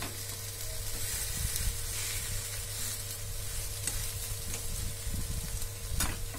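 Semolina uttapam sizzling steadily in oil in a nonstick frying pan, with a steel spatula lifting its edge partway through and a single sharp click about six seconds in.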